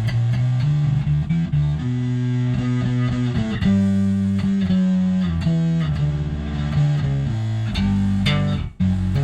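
Electric bass played through a BJE 5-knob Mammoth fuzz (a clone of the ZVEX Woolly Mammoth) combined with an Electro-Harmonix Bass Mono Synth, giving a buzzy fuzz-synth tone over a clean bi-amped low end. Sustained notes change pitch every half second to a second in a riff, with a short break near the end.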